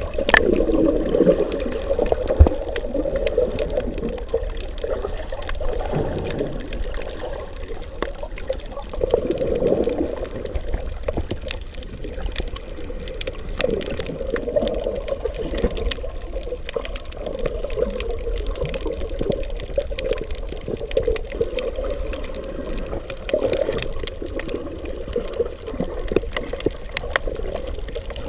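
Muffled underwater water noise recorded by a GoPro in its waterproof housing, with water sloshing and gurgling in slow irregular swells and scattered faint clicks.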